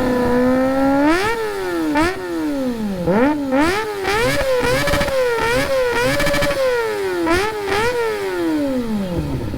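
Kawasaki ZX-25R's 250 cc inline-four revved through a Villain aftermarket muffler during an exhaust sound check. It is held steady for about a second, then blipped about a dozen times in quick rises and falls, and drops back near the end.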